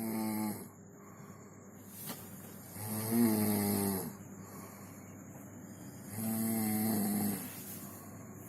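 Someone snoring in a steady rhythm. Each snore lasts about a second and comes roughly every three seconds, with quieter breathing between.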